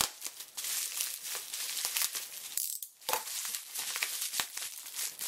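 Plastic bubble wrap crinkling and crackling as hands unwrap it, with a brief lull partway through.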